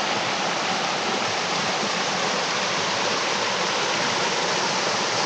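Ashgill Beck's water rushing over a small waterfall or cascade, a steady, even rush of falling water.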